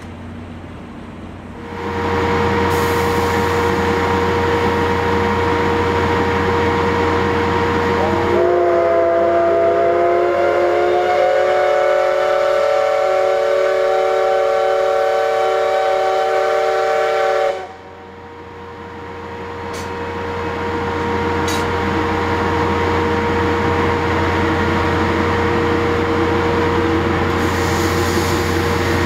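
JNR Class C61 steam locomotive standing with steam hissing loudly and steadily, the hiss starting suddenly about two seconds in. About eight seconds in its steam whistle sounds one long chord-like blast, rising slightly in pitch as it opens, held for about nine seconds and then cut off sharply, after which the steam hiss builds back up.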